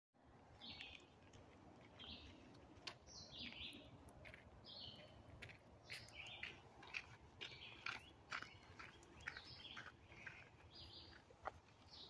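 Woodland songbirds calling in short chirps, one or two a second, with a few sharp clicks scattered among them over a faint low rumble.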